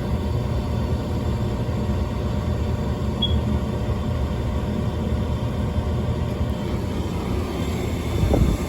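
Trane XR80 gas furnace running with a steady low motor rumble during an ignition try. A short louder surge comes about eight seconds in, then the low rumble drops away. The furnace's hot surface igniter has failed open.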